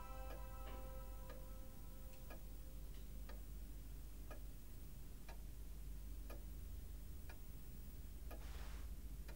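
A clock ticking slowly and evenly, about once a second, over a low steady hum.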